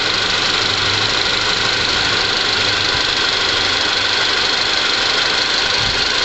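Car engine idling steadily.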